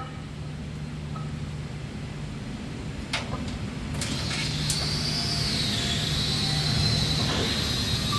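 Skid steer engine running and slowly growing louder, with a sharp click about three seconds in. A high, wavering whine joins about four seconds in.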